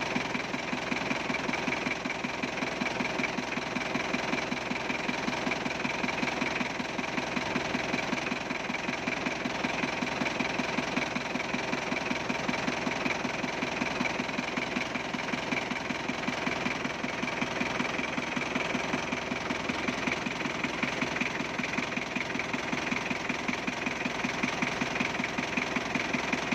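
Isuzu Panther 2.3 four-cylinder diesel engine idling steadily, with a rapid, even diesel clatter.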